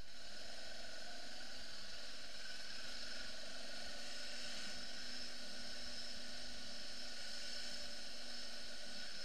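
BMW F 650 GS motorcycle riding slowly, its engine a faint steady hum under an even hiss of wind and road noise.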